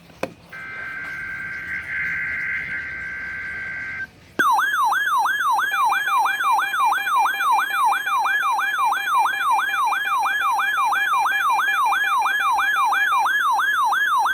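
Weather radio test alert: a steady two-tone digital data burst of SAME header code for about three and a half seconds. After a brief gap, a weather alert receiver's siren-like alarm starts, rising and falling about three times a second.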